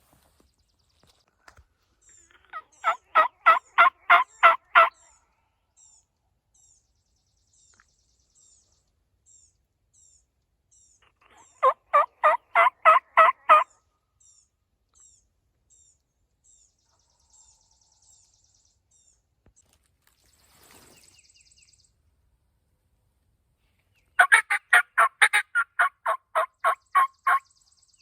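Turkey yelping: three loud series of evenly spaced notes, about four a second, each run lasting two to three seconds. A small bird chirps faintly and steadily in between.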